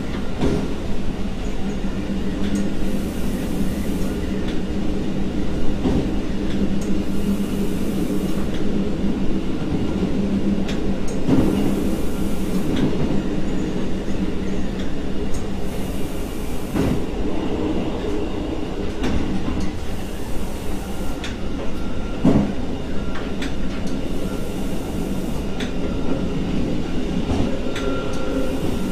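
Diesel train running along the line, heard from the driver's cab: a steady engine drone with occasional sharp knocks from the wheels and track. A faint hiss recurs about every four seconds.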